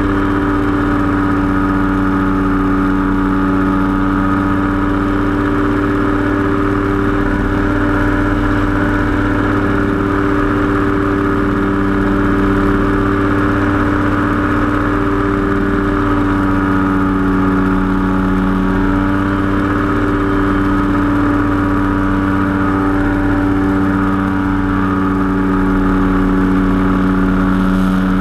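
Powered parachute's engine and pusher propeller running steadily in cruising flight, a loud even drone.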